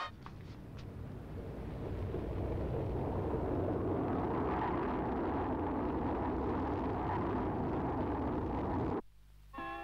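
Science-fiction spacecraft engine sound effect: a steady, deep rumbling hiss that builds over the first few seconds, holds, and cuts off abruptly near the end.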